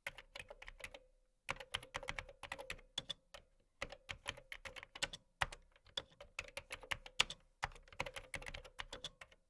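Typing on a computer keyboard: quick runs of key clicks, several a second, in bursts broken by short pauses.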